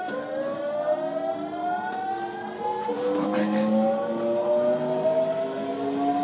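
Hankyu 8000 series electric train pulling away, its VVVF inverter and traction motors whining as it speeds up: several tones rise steadily in pitch, with a shift in the tone pattern about three seconds in.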